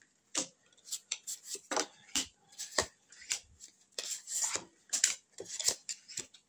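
Oracle cards from the Kruk Oracle deck being drawn and laid out one by one: a string of short, irregular clicks and slides of card on card, with a longer rub about four seconds in.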